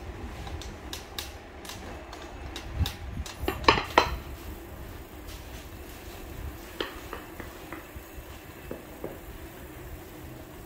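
Clinking and clattering of hard objects: frequent sharp knocks through the first few seconds, loudest in a quick burst just before four seconds in, then only scattered clicks, over a low background rumble.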